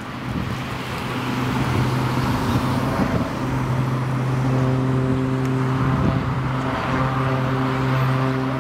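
Single-engine aerobatic monoplane's propeller and piston engine droning at a steady pitch as the aircraft climbs vertically and tumbles.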